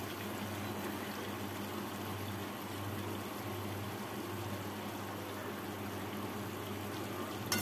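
Steady soft hiss of a wok of potato and cauliflower curry cooking over a low gas flame, with a low steady hum underneath.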